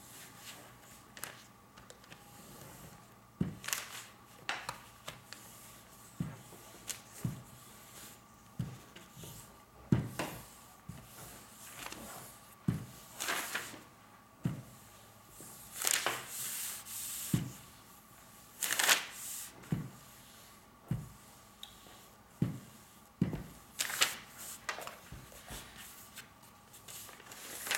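Household iron being pressed and slid over silicone release paper, with irregular soft knocks as it is shifted, lifted and set down, and brief paper rustles as the sheets are smoothed and handled.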